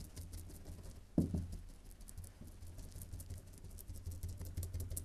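Brush stippling epoxy into wet woven glass fabric: rapid light dabbing taps, several a second, compacting the laminate and working out the air bubbles. One brief low thud about a second in.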